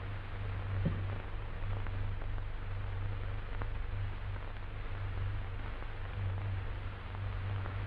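Steady hiss and low hum of an old film soundtrack, with a faint click about a second in.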